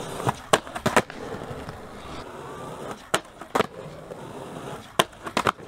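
Skateboard wheels rolling on concrete, broken by sharp clacks of the board: several in the first second, then a pair about three seconds in and another pair near the end.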